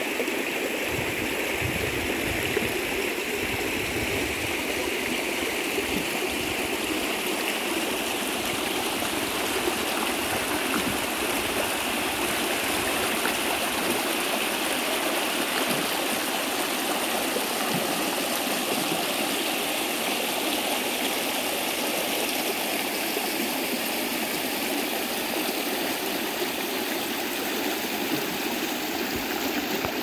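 Small rocky stream running over low cascades and ledges: a steady, even rush of water.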